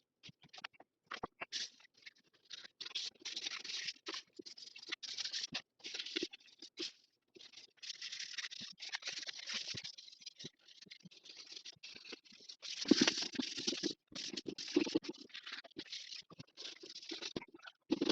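Hands working over a motorcycle helmet's shell: short, irregular scratchy rubbing strokes with brief gaps, loudest a little after the middle.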